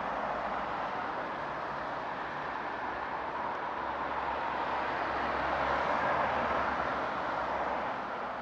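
Steady street traffic noise, a rushing hiss with a low vehicle rumble that swells a little past the middle. No siren wail is heard.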